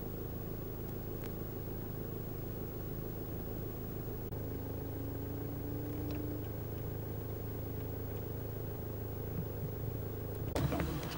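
Car engine running steadily, a low drone with a faint tone rising slightly about four seconds in.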